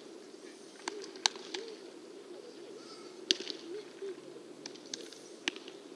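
Baseballs smacking into leather gloves as pitchers play catch: a string of sharp pops at uneven intervals, the loudest about a second in and about three seconds in.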